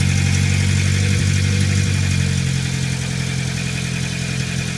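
Austin Allegro engine running steadily just after catching, having drawn fuel through from a refilled tank; it runs faster and louder at first, then settles lower about two and a half seconds in.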